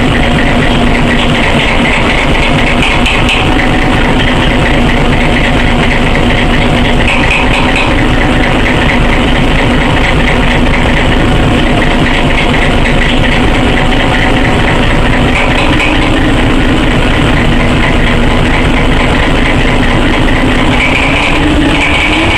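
Diesel engine running steadily at idle after a cold start in severe frost, its pitch rising near the end as it revs up.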